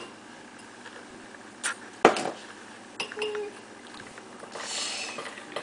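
A spoon knocking against a mixing bowl a couple of times while icing is mixed, the second knock the loudest, with a brief soft hiss near the end.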